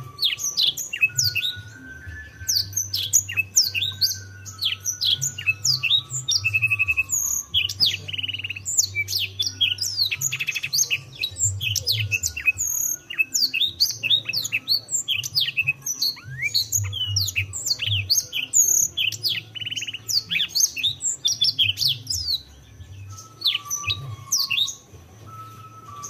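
Canary singing a long, fast song of quick falling chirps broken by short buzzing trills, easing off near the end. A faint melody of low steady notes plays underneath near the start and end.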